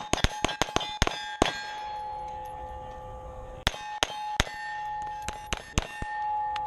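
Rapid pistol fire from several shooters on a range: a quick string of sharp shots, a pause of about two seconds, then another string. A metallic ringing hangs on after the shots.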